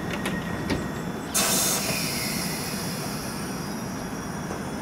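London Underground Piccadilly line train (1973 Tube Stock) standing at the platform with its doors shut, a steady low hum under it. A few light clicks come first, then about a second and a half in a sudden sharp hiss of air that eases but keeps on: the air brakes releasing before the train pulls away.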